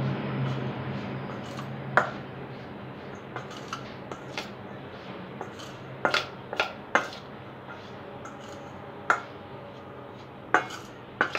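Metal spoon stirring corn kernels coated in cornflour in a stainless steel bowl: a soft scraping with sharp clinks of spoon on bowl at irregular intervals, several close together about six to seven seconds in.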